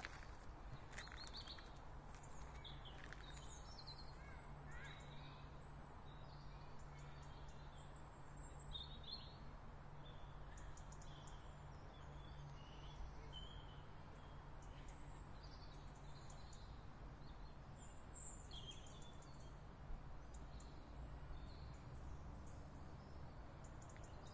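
Faint birdsong: scattered short chirps and calls from several small birds throughout, over a steady low background rumble.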